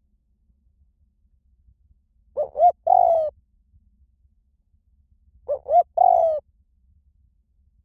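Spotted dove cooing: twice, about three seconds apart, a phrase of two short rising notes and a longer falling coo. It is the small-voiced call used as a lure recording to coax other spotted doves into calling back.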